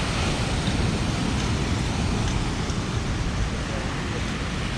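Steady rushing outdoor noise with no distinct events: wind, surf and road traffic blended together.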